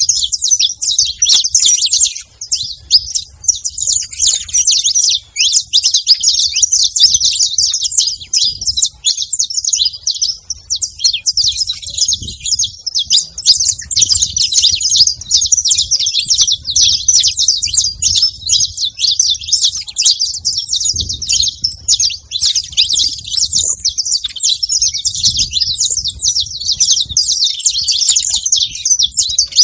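A flock of saffron finches chirping and calling over one another without a break, a dense chatter of many short high notes.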